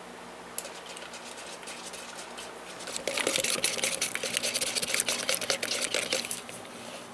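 Black paint being stirred briskly in a graduated mixing cup, the stirrer scraping and clicking rapidly against the cup's sides. A few light taps come first, then the fast stirring starts about three seconds in and eases off near the end.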